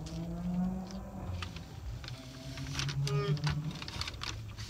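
Chewing a crispy chicken taco, with scattered crackling crunches over a low steady hum.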